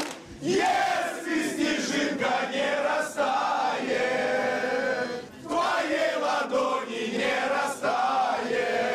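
A group of male football fans chanting and singing together in unison, with a brief pause about five seconds in.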